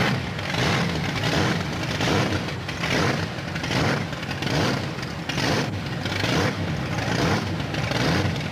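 Monster truck engine revving in repeated surges, about one a second, over a steady low rumble.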